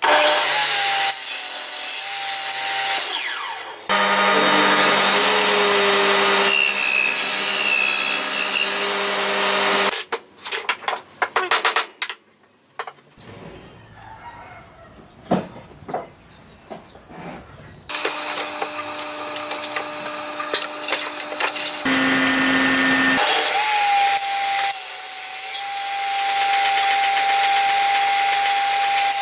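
Power tools cutting and drilling wood in a string of short clips: a motor runs with a steady whine under the hiss of the blade or bit in the wood, each clip cutting off abruptly. In the middle come a few seconds of quieter knocks and handling of wood.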